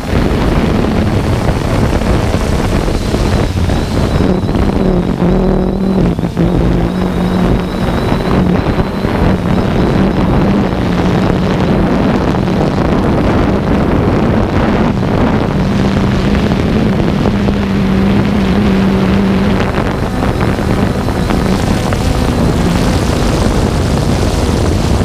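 3DR Solo quadcopter's electric motors and propellers humming steadily, heard from the camera on board, with a faint high whine and a pitch that wavers slightly as the drone manoeuvres. Wind noise rushes on the microphone.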